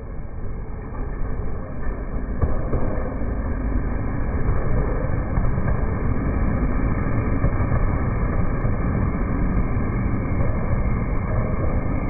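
A 185-series electric train passing close by on the rails, played back slowed down, so its wheel-and-rail rumble sounds deep and drawn out. It swells over the first couple of seconds, then holds at a steady level as the cars go by.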